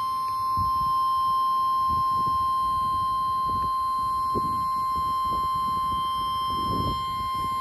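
NOAA Weather Radio warning alarm tone received over the radio: one steady, unbroken 1050 Hz tone, the attention signal that comes before a broadcast warning. Faint uneven low noise lies beneath it.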